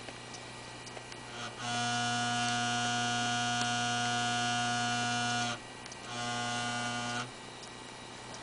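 Abnormal buzzing from around a desktop PC's hard drive, over the faint steady hum of the running machine. The buzz comes in about a second and a half in, holds steady for about four seconds, cuts out, then returns briefly for about a second; it appears or not as the drive is pressed with a finger.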